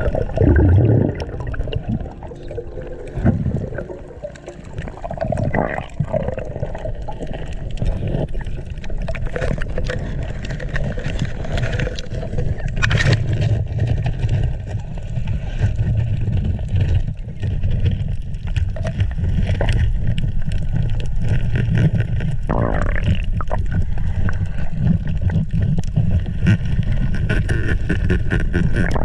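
Underwater sound picked up by a diver's action camera: a steady low rumble of water with scattered clicks and crackles.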